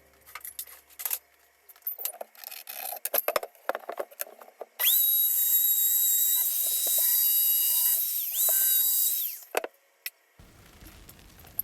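Clicks and clatter of tools and wood being handled, then an electric power drill running at full speed for about four and a half seconds, easing off and speeding up again once near the end before it stops.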